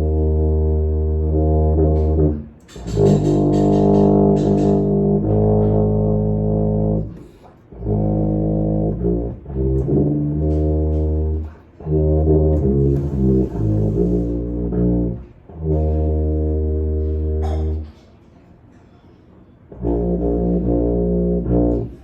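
Tuba playing a slow melody of long, low sustained notes, phrased in groups with short breaks between them and a pause of about two seconds near the end before a final note.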